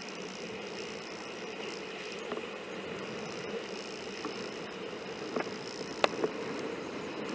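Steady rushing noise of wind and water on a sailing Hobie Cat 16 catamaran, muffled by the camera's waterproof case. A few sharp knocks sound in the second half, the loudest about six seconds in.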